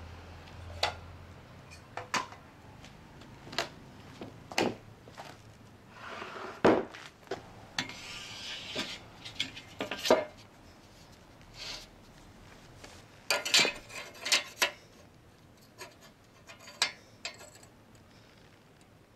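Handling noises of a steel angle and metal tools on a wooden beam: scattered knocks and clinks of metal against wood, with a scraping rub about seven to nine seconds in.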